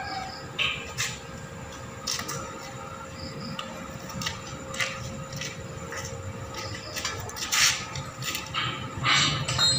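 Irregular metallic knocks and clanks of steel bars and frame pieces being handled on a concrete floor, with the loudest knocks near the end, over a faint steady hum.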